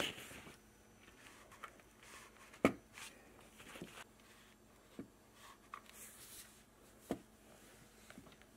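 Homemade wooden foot pedal being pressed down by a foot to test whether it takes the weight, giving three sharp knocks about two seconds apart, the first the loudest, with fainter clicks between.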